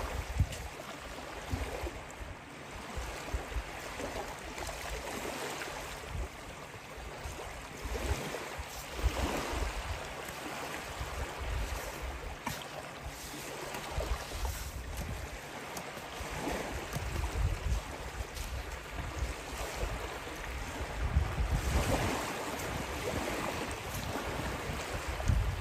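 Small waves washing onto a gravel beach, the surf swelling and falling every few seconds, with wind buffeting the microphone in low rumbles.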